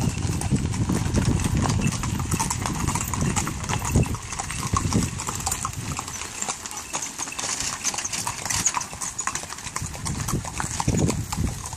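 Horses' hooves clip-clopping on a gravel lane as a line of horse-drawn wagons passes, with the wagon wheels rumbling over the gravel.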